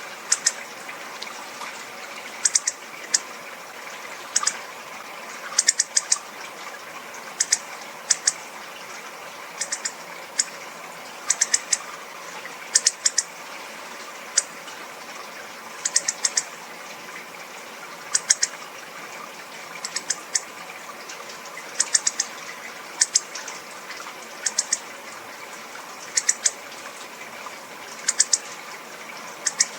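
Hawfinch giving short, sharp, high 'tic' calls, singly or in quick runs of two or three, repeated about every second or so.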